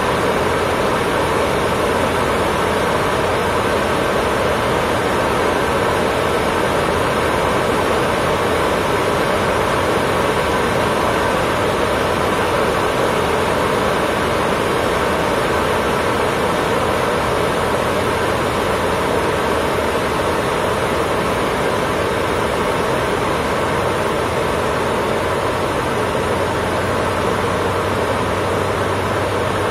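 Cessna 152's four-cylinder Lycoming piston engine and propeller running steadily in flight, a continuous drone heard from inside the cockpit.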